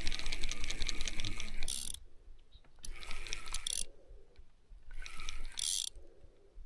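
Fishing reel with a hooked carp on the line, its mechanism giving a rapid ratchet-like clicking in three bursts: a first of about two seconds, then two shorter ones a second or so apart.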